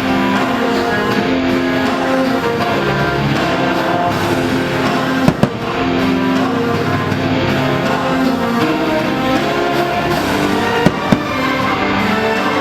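Fireworks show soundtrack music playing loudly, with firework bangs cutting through about five seconds in and twice in quick succession near eleven seconds.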